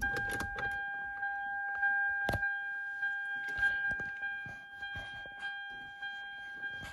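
A steady high-pitched electronic tone with overtones, with scattered light clicks and rattles and one sharp knock a little over two seconds in.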